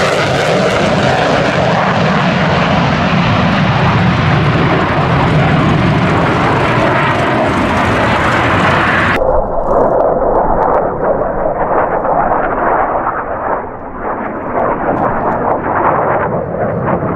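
Fighter jet engine noise from an F-22 Raptor's twin turbofans in display flight, a loud, steady rushing. About nine seconds in it cuts abruptly to a duller recording of an F-16 Fighting Falcon's jet engine passing.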